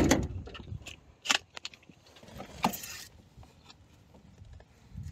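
A few scattered light knocks and clicks with some faint rustling: hands handling parts and a rag around the engine. The two sharpest knocks come about a second and a half apart, near the middle.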